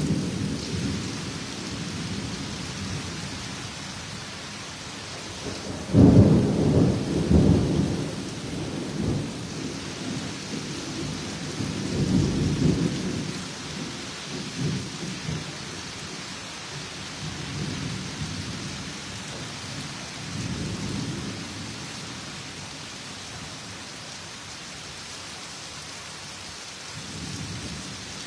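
Steady rain with rolling rumbles of thunder over it, the loudest breaking about six seconds in and another around twelve seconds, with fainter rumbles later.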